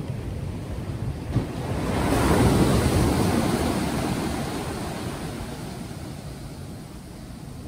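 Ocean surf: a wave breaks about two seconds in, and its wash fades away slowly, with wind buffeting the microphone throughout.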